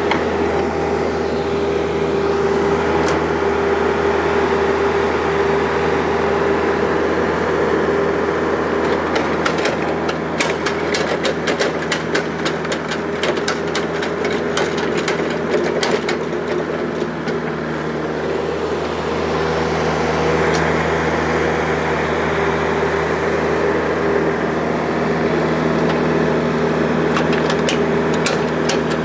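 John Deere mini excavator's engine running steadily while it digs a trench in clay soil. Runs of rapid clicking and rattling come over it in the middle and again near the end, from the machine's tracks or bucket working.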